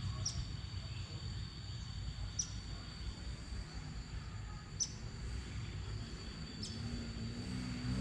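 Outdoor natural ambience: a steady high-pitched insect-like drone with a short high chirp about every two seconds, over a low rumble.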